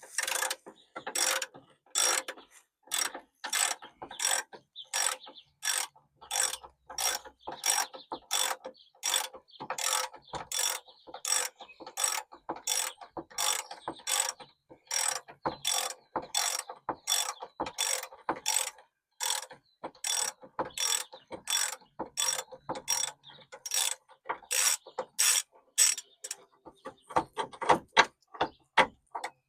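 Hand ratchet wrench with a 13/16-inch socket clicking in a steady rhythm, about two strokes a second, as bumper mounting nuts are backed off. Near the end the strokes come quicker and louder.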